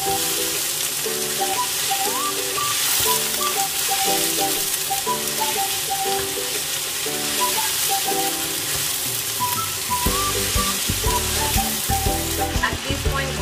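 Shredded Chinese cabbage, bean sprouts and carrot sizzling in hot oil in a wok as they are stirred and tossed with a wooden spatula. Background music plays over it, and a bass beat comes in near the end.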